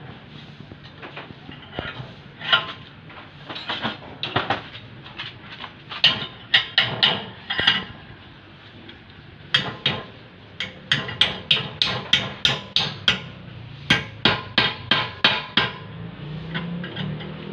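Hammer blows on a piece of metal clamped in a bench vise, scattered at first and then in quick runs of about four strikes a second with short pauses between.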